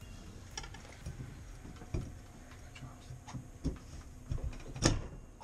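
Scattered light metal clicks and taps as a tool works the horseshoe retaining clip out of a Moen shower valve to free the cartridge, with a sharper click near the end.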